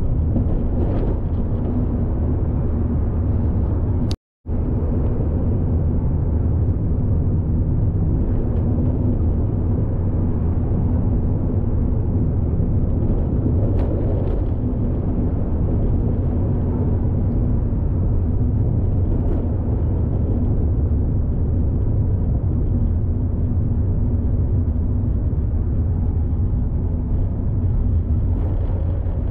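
Steady low rumble of a moving vehicle, broken by a moment of total silence about four seconds in.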